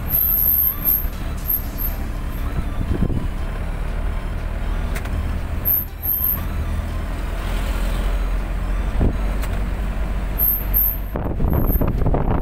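Engine and road noise of a moving vehicle, heard from inside it as a steady low rumble. Wind starts buffeting the microphone about a second before the end.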